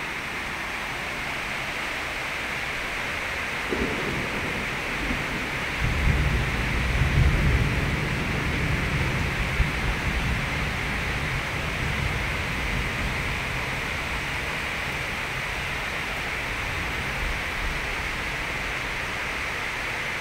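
Heavy rain falling steadily. Thunder breaks about four seconds in and rumbles low for several seconds before fading back under the rain.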